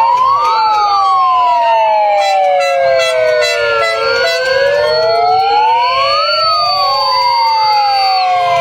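Several sirens wailing at once, their pitches rising and falling out of step with each other. A steady high-pitched tone runs above them and cuts off shortly before the end.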